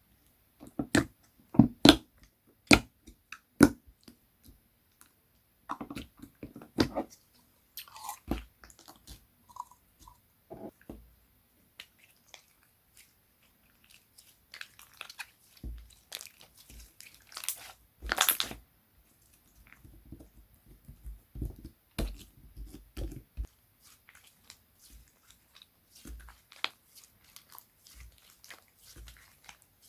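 Slime being handled and pressed: irregular sharp clicks, pops and crunchy crackles, with a quick run of loud pops in the first few seconds and another loud pop a little past halfway.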